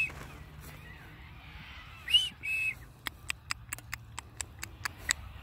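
A two-note whistle, an arching note then a short level one, about two seconds in, followed by a quick irregular run of sharp clicks.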